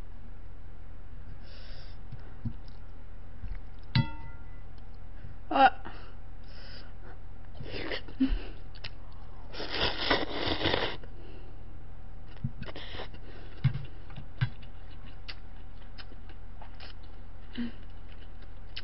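Eating noodles with wooden chopsticks from a stainless steel bowl: small clicks of the chopsticks, one of which sets the bowl ringing briefly about four seconds in, then a long slurp of noodles a little before halfway through, with scattered mouth and chewing sounds.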